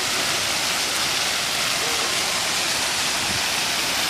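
Large ornamental fountain's water jets splashing steadily into its basin.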